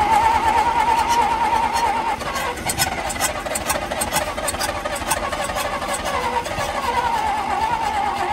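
A 1954 Dodge truck's engine being cranked by its starter with a steady high whine, while gasoline poured straight into the carburetor primes it. The engine is starting to fire, turning over fast enough to kick the starter out.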